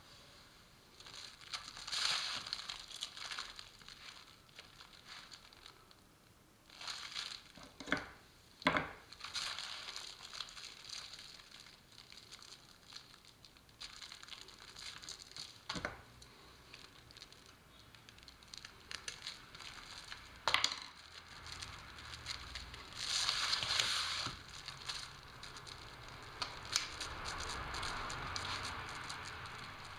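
Plastic sheeting of an air-conditioner washing hopper being handled, crinkling and rustling in irregular bursts, with a few sharp clicks and snaps.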